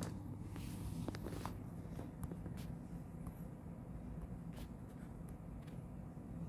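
Light rustling and a few sharp clicks from a plastic blister pack being handled and set against the wall, over a low steady room hum.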